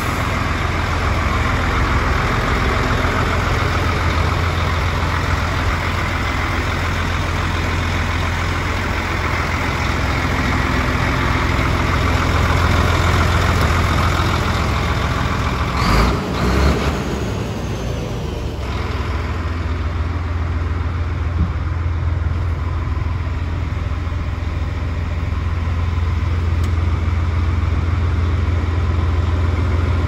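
DAF CF75.310 truck's 9.2-litre six-cylinder diesel idling steadily with a low hum. A couple of brief knocks come about halfway through.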